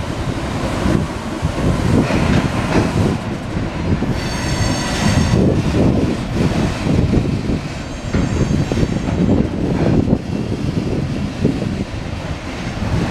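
Wagons of a mixed freight train rolling past, wheels clattering and knocking over the rails under a steady rumble. A high metallic squeal rises about four seconds in and lasts a second or so, and a fainter one comes near the two-thirds mark.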